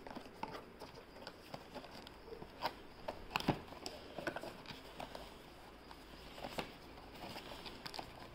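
Cardboard product box being opened and handled by hand: scattered light clicks, taps and scrapes of the flaps, with a few sharper ones about three and a half seconds in.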